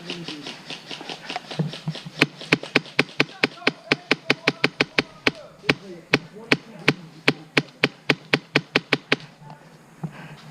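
Airsoft gun firing a rapid string of single shots, several sharp cracks a second for about seven seconds before stopping, with faint distant voices underneath.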